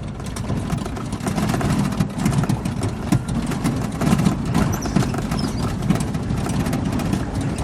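Jeep driving on a rough dirt track: the engine runs at a low, steady speed while the body and suspension rattle and knock over bumps.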